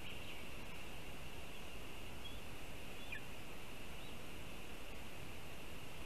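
Forest ambience through a nest-camera microphone: a steady hiss with a constant high-pitched buzz, and a few faint bird chirps about two and three seconds in, one sliding down in pitch.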